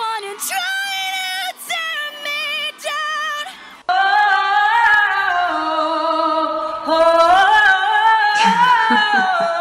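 A woman's solo pop singing voice, live and without auto-tune, holding notes with a wide vibrato in short phrases. About four seconds in it cuts to a louder clip of her belting long notes that slide up and down.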